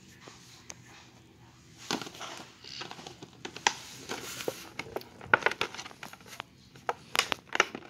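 Toy packaging being handled and worked open: crinkling plastic and card with many sharp clicks and taps, starting about two seconds in.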